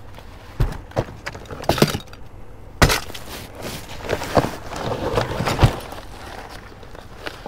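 Rummaging through a full trash can: a series of knocks and clunks as items are shifted and pulled aside, the loudest about three seconds in, with rustling of bags and papers around the middle.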